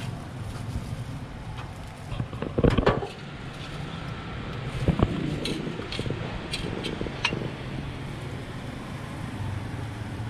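Metal ladle and spoons clinking and scraping against stainless steel pots and a steamer, with a louder metal clatter about three seconds in and another near five seconds, over a steady hum of street traffic.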